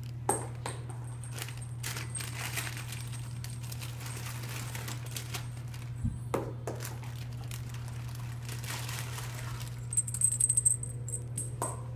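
Small jingling cat toys being batted around a wooden floor by cats: a high metallic jingle comes and goes, loudest in a quick flurry about ten seconds in, with a few knocks, over a steady low hum.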